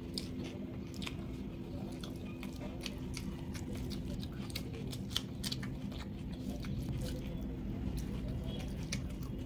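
Eating sounds: fingers squishing and mixing rice with egg korma gravy on a plate, with wet chewing and many short mouth clicks. A steady low hum runs underneath.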